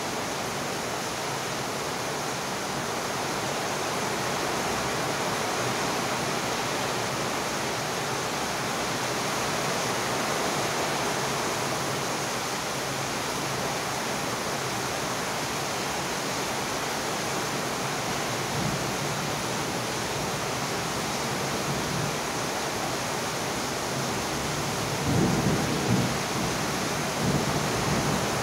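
Steady rain falling, an even hiss throughout, with low rumbles of thunder swelling up about three-quarters of the way through and again near the end.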